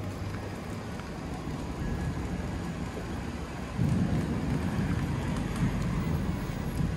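Thunder rumbling low, swelling up about four seconds in and rolling on, over a steady low background noise of the storm.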